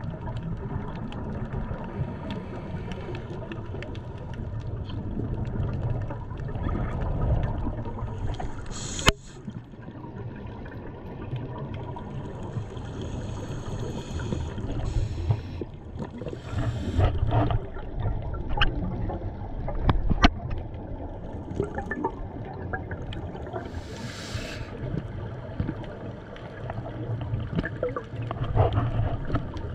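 Moving water with a steady low rumble and scattered knocks, one sharp knock about nine seconds in.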